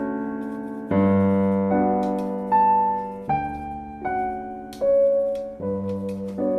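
Background music: slow solo piano, single notes and chords struck about once a second and left to ring and fade.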